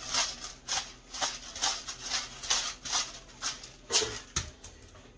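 Hand-twisted pepper grinder cracking peppercorns, a short grinding stroke about three times a second for about four seconds. A single low knock follows a little after four seconds in.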